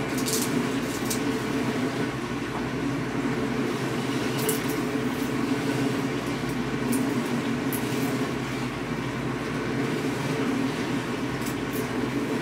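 A steady low mechanical hum and rumble, like a motor running, with a few faint brief clicks.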